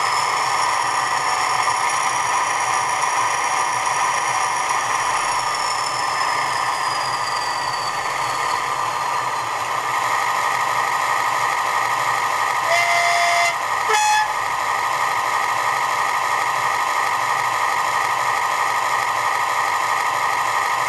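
Class 20 diesel locomotive's English Electric 8SVT engine ticking over, played back through a model's DCC sound decoder and small speaker. A high turbocharger whistle sounds over it, then drops in pitch and fades out about nine seconds in as the turbo runs down. About thirteen seconds in there is a horn blast of about a second, followed by a brief second note.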